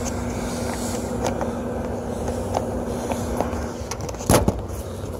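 Rooftop gas heating unit running with a steady mechanical hum; a steady tone in it cuts out about three and a half seconds in. A few light clicks, then a sharp knock a little past four seconds in.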